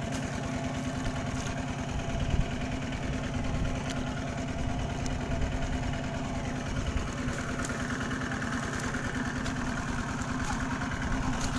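A small engine running steadily, with a fast, even beat.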